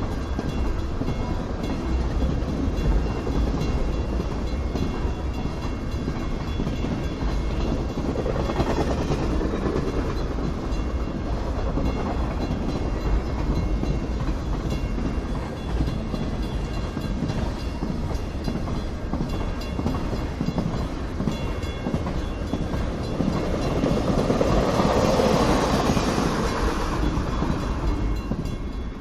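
A freight train rolling past with a steady low rumble from its cars. The rumble swells louder about twenty-four seconds in, then eases off near the end.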